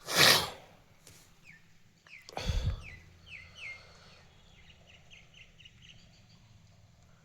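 Small birds chirping: a run of short, quick falling chirps that thins out toward the end. A loud rustle opens the sound, and a thump with a brief rustle comes about two and a half seconds in.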